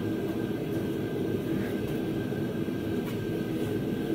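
Steady low droning hum with a thin, faint high whine held above it, and a few faint light clicks.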